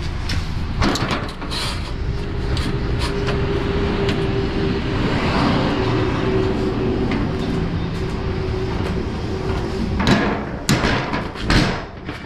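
DAF XF lorry heard from inside the cab: a steady engine and road rumble, with scattered clicks and rattles and a steady whine through the middle. Near the end come several loud, sharp knocks.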